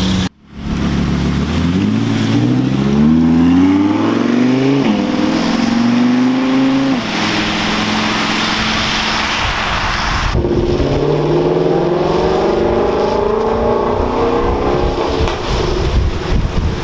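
Sports cars accelerating hard on wet streets: an engine climbs steeply in pitch, drops at a gear change about five seconds in and climbs again, then the hiss of tyres on wet tarmac as a car passes. About ten seconds in it switches abruptly to another engine rising in pitch.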